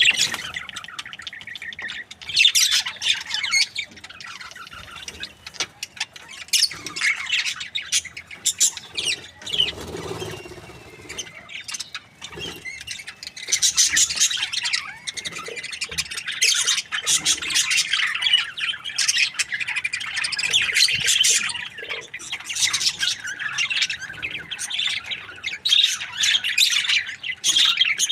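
Several budgerigars chirping, chattering and squawking with many calls overlapping, the chatter growing busier and louder about halfway through.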